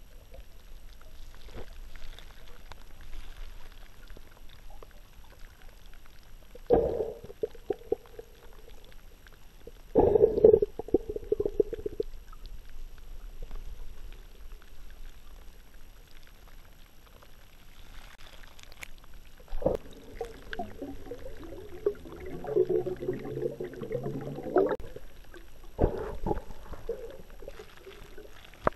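Muffled underwater sound of water sloshing and gurgling around a camera held just below the surface, with a low steady rumble underneath. Heavier dull surges come about 7 and 10 seconds in, and a longer bubbling, churning stretch runs from about 20 to 25 seconds in.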